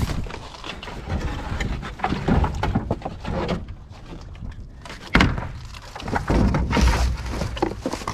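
Knocks, thuds and scraping of debris being dragged and set down in a dumpster, with one sharp bang about five seconds in.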